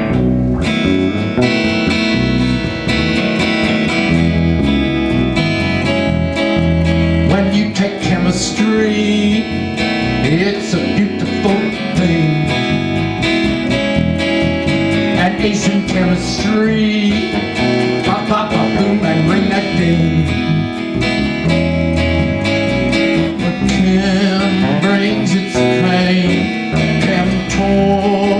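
Acoustic-electric guitar strumming a song intro, with bass guitar underneath. A man's voice comes in singing near the end.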